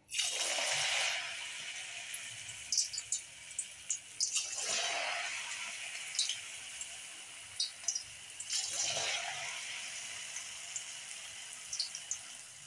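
Balls of battered shredded cabbage (Manchurian pakoda) deep-frying in hot oil in a wok. There are three sudden surges of loud sizzling about four seconds apart, as fresh batter hits the oil, each easing into a steady sizzle with scattered crackles.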